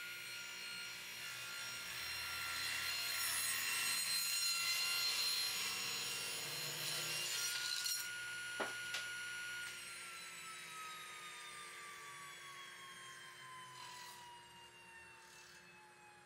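Table saw blade cutting a taper along a wooden table leg fed on a tapering jig, a steady high whine with rough cutting noise over it. About eight and a half seconds in there is a single sharp knock, and from about ten seconds the saw winds down, its whine falling steadily in pitch.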